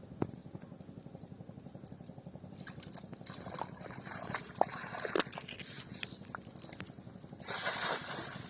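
Water sloshing and splashing around a small boat during cast-net fishing, with scattered knocks and clicks over a steady low rumble; a louder splash comes about seven and a half seconds in.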